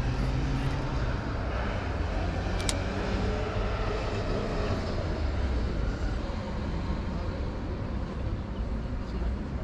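Steady low outdoor rumble of town background noise, with one sharp click about three seconds in as the spinning reel's bail snaps shut after a cast.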